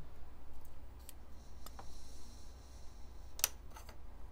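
A hobby knife blade pokes and scrapes through a plastic model kit part. A few sharp clicks, the loudest about three and a half seconds in, come with a faint scraping between them.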